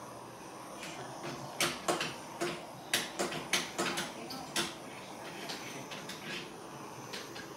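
Handheld butane torch flame hissing steadily as it is passed over wet acrylic paint, with a run of about ten sharp, irregular clicks in the middle.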